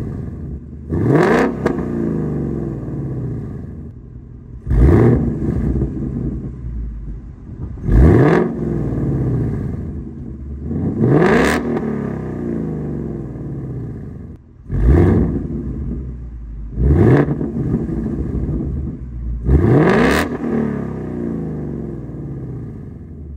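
2022 Ford Mustang Mach 1's 5.0-litre V8 breathing through a Steeda H-pipe, factory catalytic converters and factory active exhaust, idling and revved about seven times. Each rev rises sharply and drops back to idle, with the exhaust valves switched from normal to sport to track mode. A really, really deep, throaty tone.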